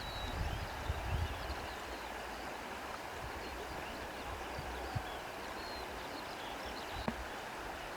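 Steady wash of sea water and wind rustling through reeds. There are low gusts of wind on the microphone in the first second or so, and faint high chirps over the top.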